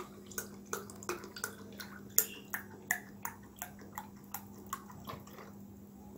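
Water dripping steadily, about three drops a second, over a faint low hum.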